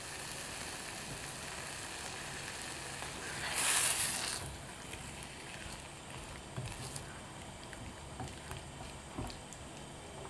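Chopped strawberries and raspberries with sugar sizzling softly in a small saucepan as they start to cook down into jam. About three and a half seconds in, a louder hiss lasts about a second. In the second half, small soft clicks and scrapes come from a silicone spatula stirring the fruit.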